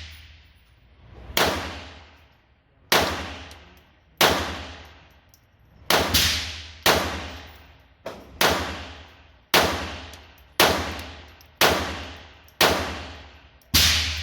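Pistol shots fired one at a time at a steady pace, about eleven in all, roughly a second apart. Each shot rings out in the hard-walled indoor range with a long, echoing decay.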